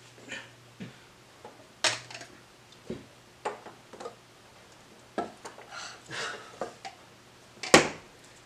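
Scattered knocks and clacks of plastic party cups being handled and set down on a table, with short breathy gasps as shots of straight tequila go down; the loudest knock comes near the end.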